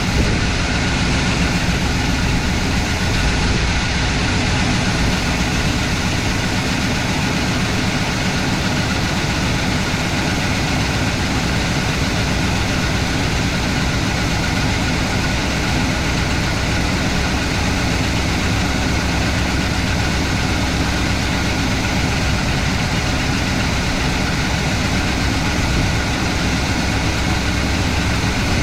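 Wrecker truck's engine running at a steady idle, which the owner thinks has a miss, just after a new ignition control module was fitted.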